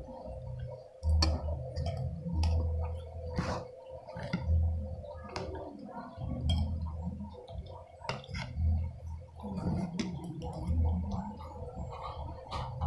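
Close-up eating sounds: chewing and mouth noises with low thuds every second or two. Short clicks and scrapes of a metal spoon against a ceramic bowl run through it, over a faint steady hum.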